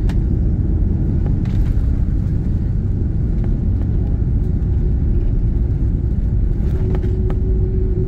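Cabin noise of an Airbus A330-200 on its landing roll down the runway: a loud, steady low rumble of engines and wheels, with a few light clicks and rattles. A thin steady tone joins in near the end.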